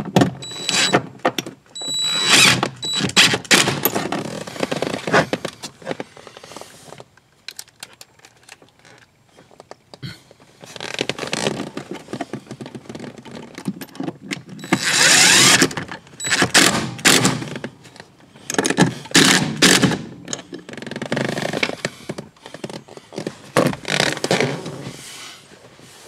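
DeWalt 20V cordless driver running in short bursts, driving screws through an accelerator pedal bracket into a car's firewall, with knocks, clicks and scraping as the bracket and tool are handled.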